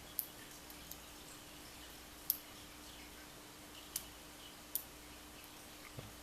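Faint, sharp metallic clicks, about six at irregular intervals, as a hook pick works the pins of a pin-tumbler lock held under tension from a pry-bar tensioner.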